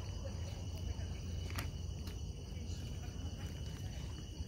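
Outdoor ambience of a steady insect drone: several high, even tones that hold without a break, over a constant low rumble. A single sharp click comes about a second and a half in.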